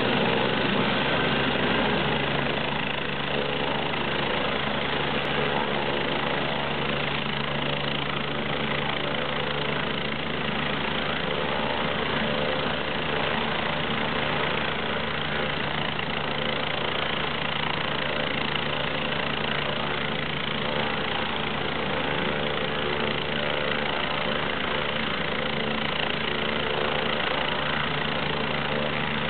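Medical helicopter's turbine engine running steadily on the ground with its main rotor turning, idling on the pad before take-off.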